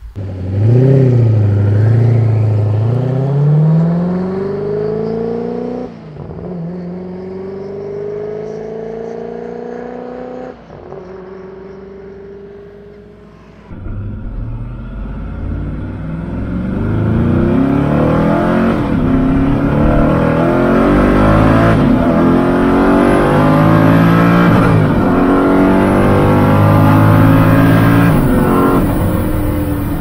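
Koenigsegg Agera's twin-turbo V8 accelerating at full throttle, its pitch climbing through the revs and dropping at quick upshifts about six and ten seconds in. From about fourteen seconds on it is heard from inside the cabin, louder, revving up through several more gears.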